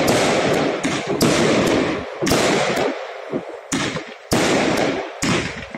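Aerial fireworks bursting in quick succession: about six sharp bangs, each followed by a crackling hiss that fades before the next.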